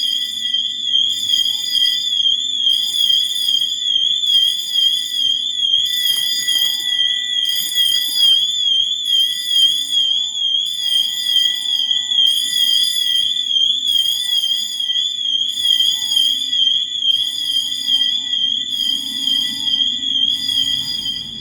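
Fire alarm siren sounding during an alarm test: a high, fast-warbling electronic tone that holds steady in loudness, with a second alarm sound pulsing about once a second behind it.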